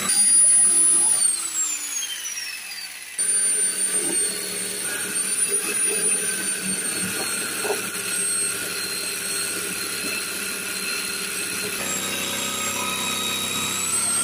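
Electric jigsaw running and cutting a curve into a wooden plank, its motor whining with the blade chattering through the wood. About a second in the whine slides down in pitch as the saw slows, then it speeds back up sharply about three seconds in and runs steadily on.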